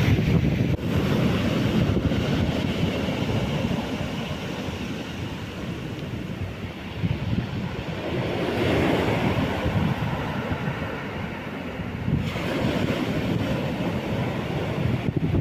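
Stormy Black Sea surf breaking and washing on the beach, a continuous rush that swells as each wave comes in, with wind buffeting the microphone.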